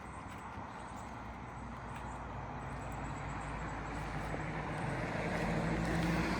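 A motor vehicle's engine hum growing steadily louder as it approaches, with a few faint clicks early on.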